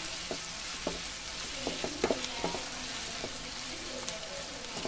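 Sliced onions and green chillies sizzling in oil in a nonstick kadai as they are sautéed, with a spatula scraping and tapping the pan in short, irregular strokes over a steady hiss.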